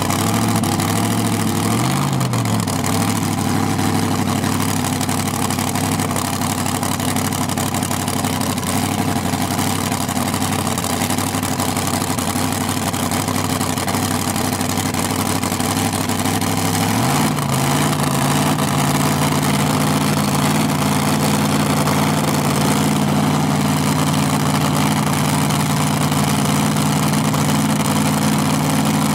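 A pulling tractor's engine on a test run. It idles with two quick blips of the throttle at the start, then runs steadily until about 17 seconds in, when the revs rise to a higher speed and hold there.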